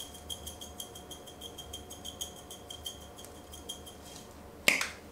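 Spice shaker of Montreal steak spice shaken over ground beef: a quick, even rattle of about six shakes a second, then a sharp knock near the end.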